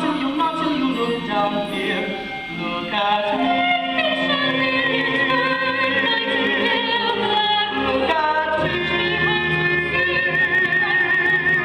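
Singing with accompaniment in musical-theatre style, long notes held with vibrato, one about halfway through and another near the end.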